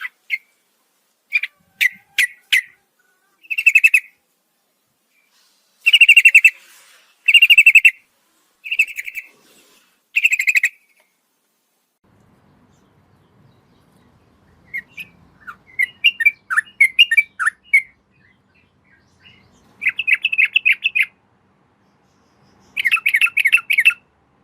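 Yellow-vented bulbul (trucukan) calling in short, rapid bubbly phrases, repeated in separate bouts with pauses between them. A faint low hum sits under the calls in the middle stretch.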